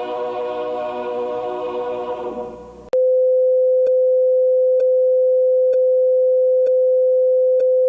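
The closing national anthem, a choral recording, fading out. About three seconds in, a loud steady single-pitch sign-off tone cuts in, with a faint click about once a second, and it cuts off suddenly at the end.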